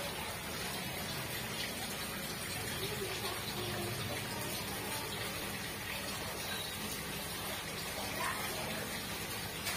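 Water splashing steadily from a pipe outlet into a fish pond.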